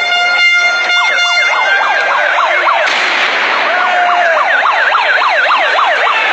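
A horn holds one steady tone, then a siren takes over about two seconds in, sweeping rapidly up and down in pitch several times a second over steady street noise.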